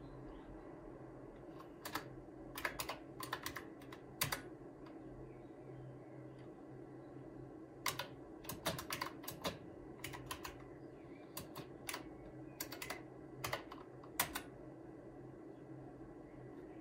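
Typing on an IBM Model M buckling-spring keyboard: two bursts of loud, sharp key clicks, the first about two seconds in and the second from about eight seconds in, over a steady low hum.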